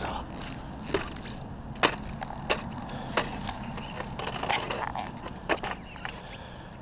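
Footsteps crunching and snapping on snow-covered ice of a frozen pond. There are about seven sharp, irregular cracks, roughly a second apart.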